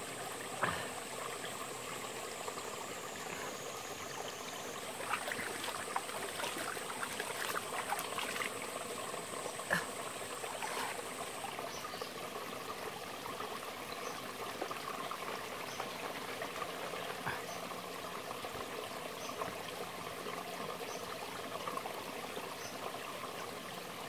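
Mountain stream trickling over rocks, steady throughout. A thin high whine sounds over it and stops about halfway, and there are a few faint ticks in the first half.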